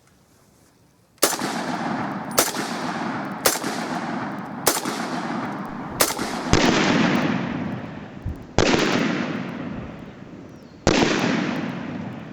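Ruger Mini-14 .223 rifle firing semi-automatically: eight shots, the first five about a second apart, then three more spaced a second or two apart, each with a long echoing tail.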